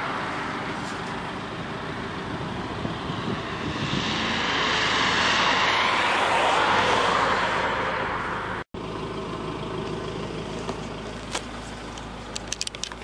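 Outdoor traffic noise that swells and fades as a vehicle passes, four to seven seconds in. It cuts out for an instant and then carries on quieter, with a few light clicks near the end.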